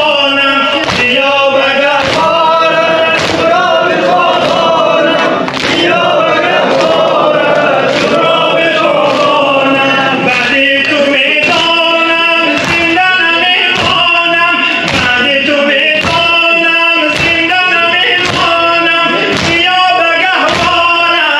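Men's voices chanting a noha, a Shia mourning elegy, together, over a steady beat of hands striking chests (sineh-zani) a little more than once a second.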